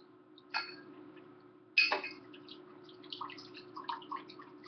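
Vinegar poured from a glass bottle into a glass measuring cup, trickling and splashing in short irregular spurts. Two sharp knocks, the second and louder one about two seconds in.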